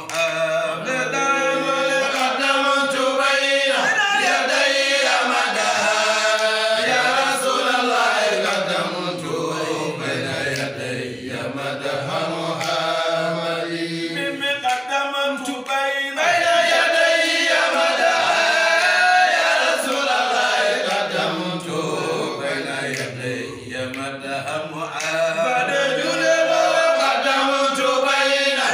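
Group of men chanting an Islamic devotional song together, unaccompanied, in long held lines that rise and fall in pitch.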